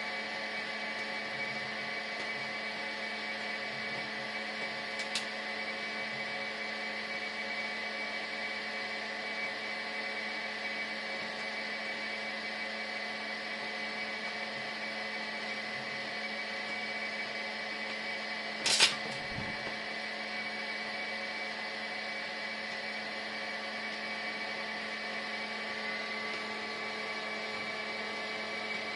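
Steady electrical hum of several held tones, with a faint click about five seconds in and one loud sharp click or knock about two-thirds of the way through.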